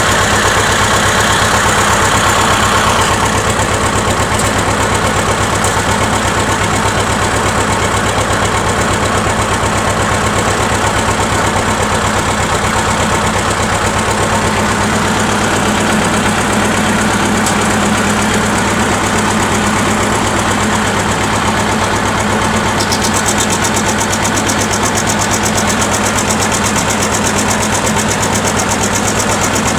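T-25 tractor's two-cylinder air-cooled diesel running steadily with an even, rapid exhaust beat, its exhaust fitted with a homemade spring 'turbo whistle'. The sound is a little brighter in roughly the first three seconds.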